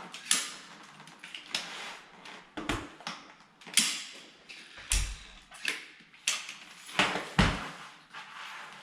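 A string of sharp knocks and thuds, about nine, irregularly spaced, several with a deep thump, from tools and flooring materials being handled and set down during floor installation work.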